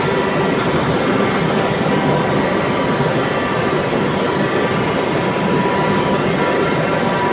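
Steady, unbroken hiss and buzz of a TIG welding arc running on stainless steel pipe, with a constant hum of several steady tones.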